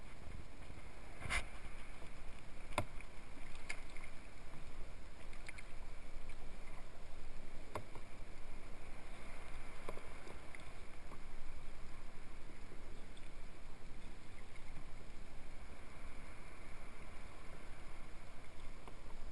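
Water splashing and lapping along a sea kayak's hull as it is paddled, with a few sharp knocks in the first ten seconds.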